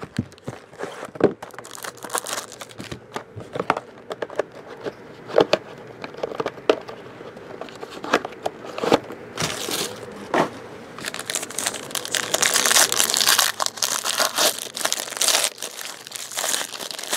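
Plastic wrapping of a sealed trading-card box being handled and torn open: crinkling and tearing with scattered small clicks and taps, growing denser and louder about halfway through.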